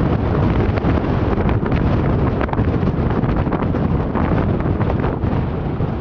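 Strong, gusty wind buffeting the camera's microphone, a loud rumble with rushing gusts.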